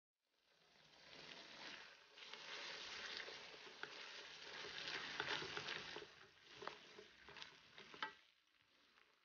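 Spice paste sizzling in hot oil in a nonstick wok, stirred with a wooden spatula that scrapes and clicks against the pan. The sizzle fades in at the start and dies away near the end, after one sharp click about eight seconds in.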